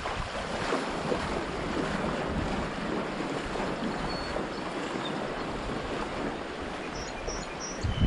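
Shallow creek water rushing over a rocky riffle, with the splashing of feet wading through it.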